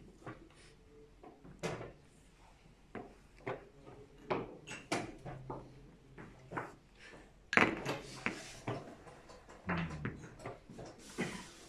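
Chess pieces being set down on the boards and chess clock buttons being pressed during fast blitz play: an irregular series of short clicks and knocks, the loudest about two-thirds of the way through.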